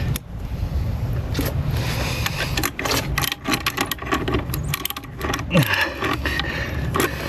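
Hand tool clicking and scraping against a corroded, crumbling bolt on a boat's aluminium outdrive, in many short, irregular knocks over a low rumble.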